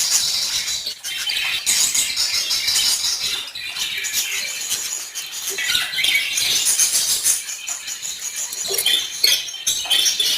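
A flock of budgerigars chirping and chattering continuously, a dense run of rapid high-pitched chirps and warbles.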